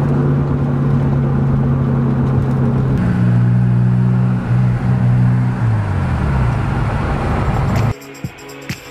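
Turbo BMW E30 heard from inside the cabin while driving: first a steady low drone from the worn front wheel bearings, then, with new bearings and hubs fitted, a lower-pitched running and road noise whose tones step down in pitch. Music comes in near the end.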